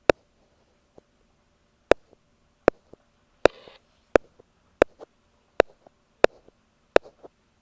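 Ear pick tapping on an earphone microphone: sharp, close taps about once every 0.7 s with softer taps between them, and a brief scratching rub about halfway through.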